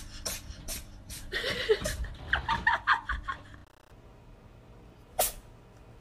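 A tabby cat sneezing in a rapid run of short, sharp sneezes, followed by a couple of seconds of short pitched vocal sounds, the loudest part. After a cut, a second cat gives one sharp sneeze about five seconds in.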